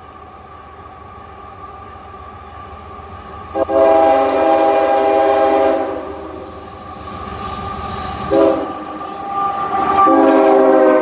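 Nathan K5HL five-chime locomotive air horn (2nd generation) on an approaching freight train: a long blast a few seconds in, a short blast a couple of seconds later, then another long blast starting near the end, over the rising rumble of the train.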